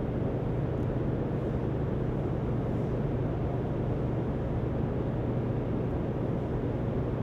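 Steady low machinery hum with a constant rumbling noise underneath, unchanging throughout.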